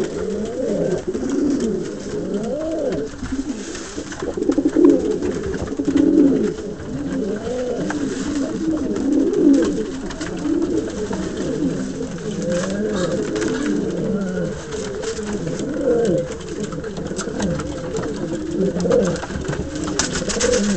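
Domestic pigeons cooing, several birds overlapping in low, warbling coos that rise and fall in pitch without a break.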